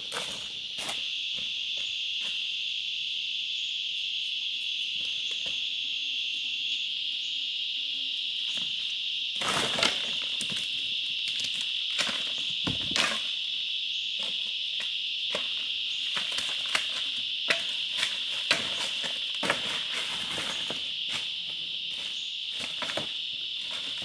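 A steady, shrill drone of insects that does not change in pitch or level. Scattered clicks, snaps and rustles sit on top of it, with a louder knock about ten seconds in and another about three seconds later.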